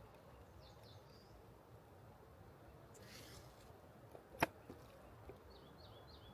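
Quiet outdoor ambience with faint, high, repeated bird chirps near the start and again near the end. A brief rustle comes about three seconds in, and a single sharp click, the loudest sound, about four and a half seconds in, from handling the clear plastic box.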